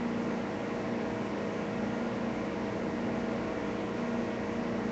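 Steady background hiss with a faint low hum, picked up by a phone microphone; no distinct event.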